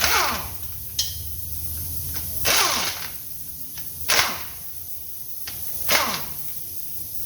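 Pneumatic impact wrench fired in four short bursts, each spinning down with a falling pitch, and a sharp click about a second in.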